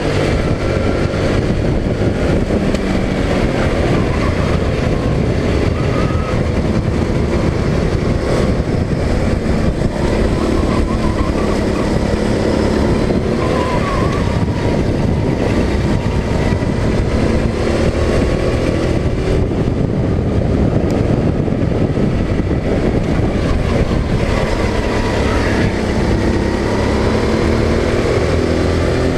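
Go-kart engine running hard, its pitch rising and falling as the throttle is opened and eased through the corners, with rushing wind noise over it.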